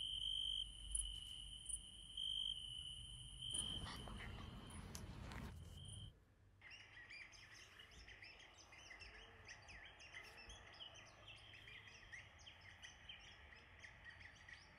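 Insects trilling steadily in high, pulsing tones, with a rushing noise for about two seconds. About six seconds in the sound changes abruptly to a chorus of small birds chirping.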